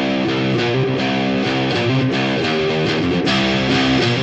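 Background music led by guitar, strummed in a steady rhythm.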